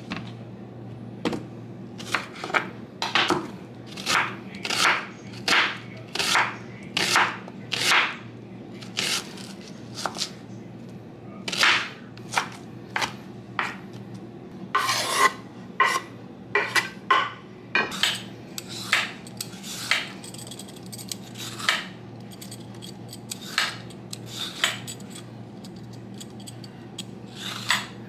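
Chef's knife chopping a red onion on a wooden cutting board, slow even chops about once a second. In the later part come lighter, quicker scraping strokes as a cucumber is peeled in strips.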